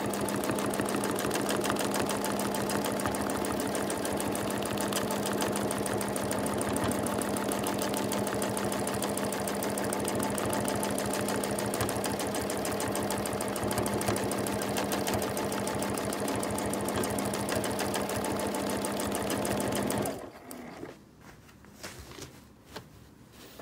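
Domestic sewing machine running steadily in free-motion quilting, with rapid needle strokes over a constant motor hum. It stops near the end as the quilter pauses to reposition her hands.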